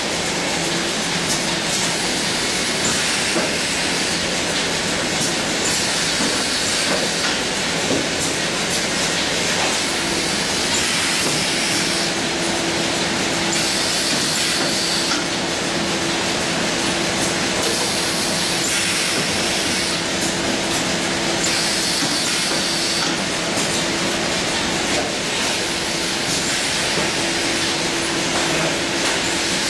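Automatic cartoning machine running continuously: a steady mechanical clatter with rapid clicking, recurring hissing every few seconds, and a steady hum that sets in about ten seconds in.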